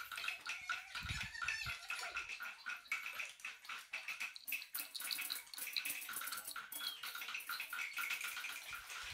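Orange juice poured from a carton into a plastic cup, a faint splashing trickle with crackly handling noise, and a few soft knocks from the carton about a second in.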